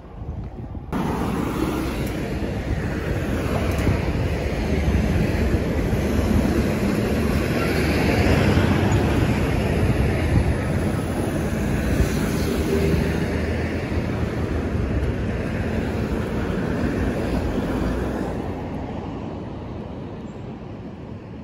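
A passing vehicle: a rumbling noise that comes in about a second in, is loudest around the middle and dies away over the last few seconds.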